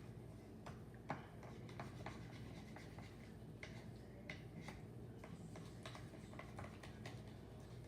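Slime being poked and worked by hand, making faint scattered clicks and small pops at an irregular pace.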